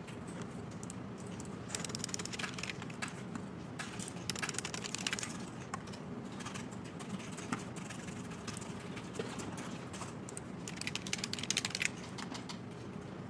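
Typing on a computer keyboard: quick clicking keystrokes in several fast bursts with short pauses between, over a steady low hum.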